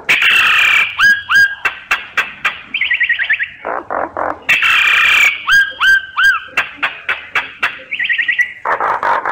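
Myna song played as a lure call: harsh scratchy calls, quick runs of clicking notes and short rising whistles. The same sequence of phrases repeats about every four and a half seconds, as a looped recording does.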